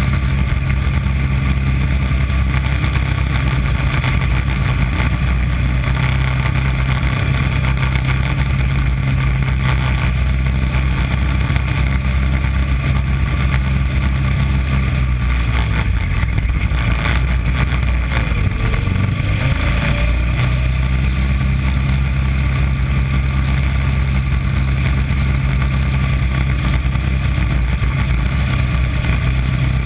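Small engine of a mini Corvette race car running steadily at speed, heard close from its hood. About two-thirds of the way through, its note wavers and dips before settling back to the same steady pitch.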